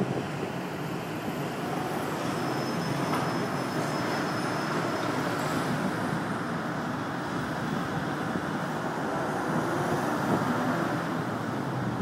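Steady city street traffic noise, an even background hum of passing vehicles with no single event standing out.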